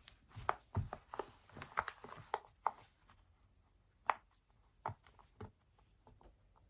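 Freshly washed fidget toys being handled and tried: irregular small clicks, taps and pops, busy for the first few seconds, then a few single clicks spaced apart.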